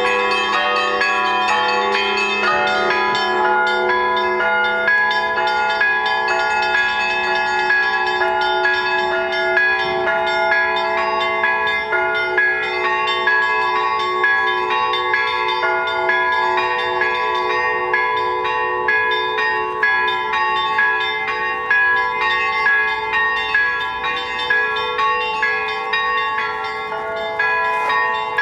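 Russian Orthodox church bells rung by one bell ringer. A rapid, dense pattern of strokes on many bells rings over the long sustained ringing of the larger ones, and a deep hum dies away about twelve seconds in.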